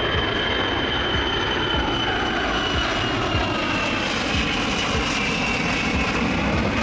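Ilyushin Il-76's four turbofan engines as the jet flies low past: a steady, loud jet rush with a high whine that slowly falls in pitch as the aircraft goes by.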